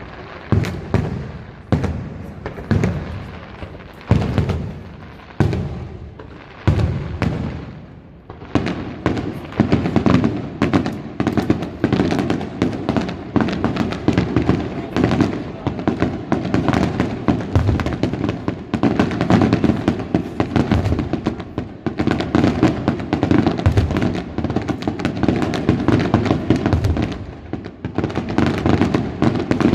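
Aerial fireworks bursting: separate booms about once a second, then from about eight seconds in a dense, rapid barrage of bursts with no break.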